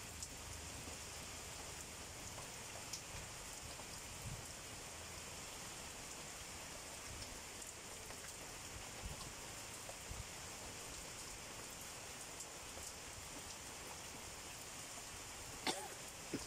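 Heavy rain falling steadily: an even hiss with scattered sharper drop hits and one louder tap near the end.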